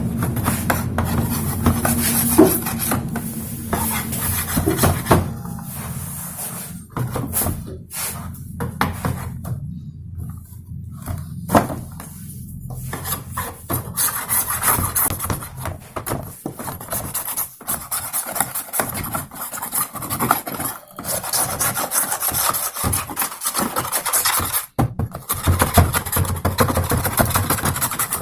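Rapid scraping and rubbing as old glue and grease are cleaned off an induction cooker's base, pausing briefly about a third of the way through.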